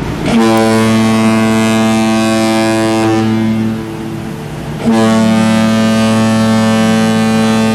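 Ship's horn sounding two long, steady blasts, each about three and a half seconds, a low tone with many overtones.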